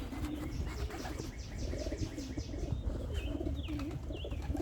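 Domestic racing pigeons cooing in a loft, a steady run of low wavering coos, with short high chirps over them and a brief fluttering rustle between about one and two and a half seconds in.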